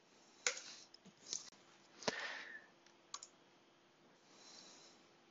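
A few faint computer mouse clicks, spaced about a second apart.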